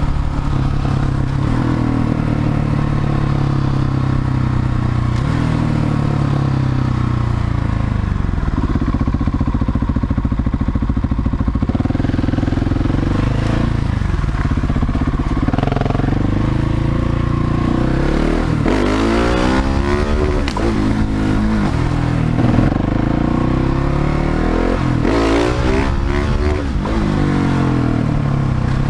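Husqvarna 701 Supermoto's single-cylinder engine running under way, its note rising and falling over and over as the rider accelerates, shifts and eases off.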